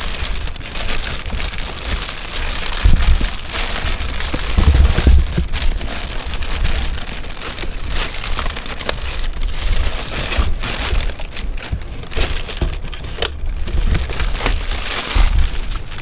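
Plastic wrapping crinkling and rustling as it is pulled off a new sewing machine, with a few dull thumps of handling.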